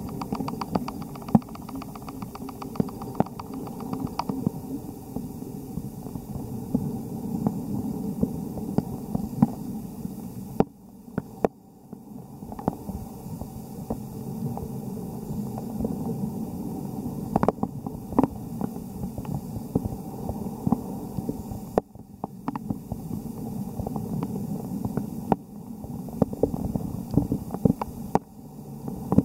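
Muffled low rumble of tidepool water heard through the microphone of a camera held underwater, with scattered sharp clicks and a fast run of ticks in the first four seconds. The sound drops out briefly a few times.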